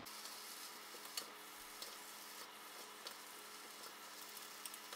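Stir-fried noodles and vegetables sizzling faintly in a wok as they are tossed by hand, with a few light clicks scattered through.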